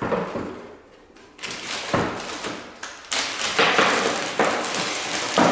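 Handling noise: several sharp knocks, each followed by rustling, starting about a second and a half in, as the gas hose's quick-lock fitting and the machine's parts are handled.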